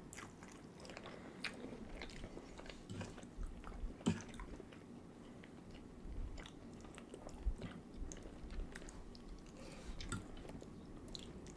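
Close-up eating: soft chewing and biting with scattered small crunches and mouth clicks.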